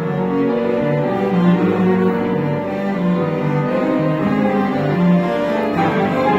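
Piano trio playing: violin, cello and grand piano together in sustained, changing notes.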